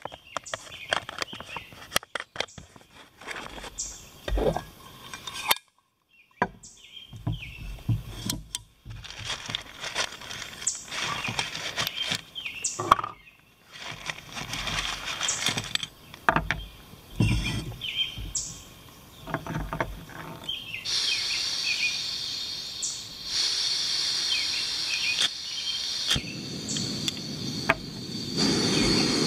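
Plastic bag crinkling and small clicks and knocks of gear being handled while a backpacking canister gas stove is set up. Late on a steady gas hiss starts, and a few seconds before the end the burner lights and runs with a steady rushing sound.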